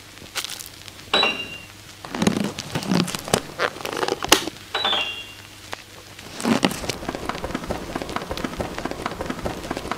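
Crinkling and crackling noises in irregular bursts, with two short high chirps, one about a second in and one near the middle. After about six and a half seconds the noise becomes a dense, even crackle.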